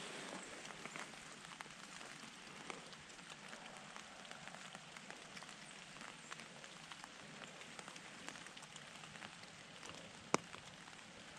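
Light rain pattering on dry leaf litter and branches, a faint steady patter of small ticks, with one sharper tick about ten seconds in.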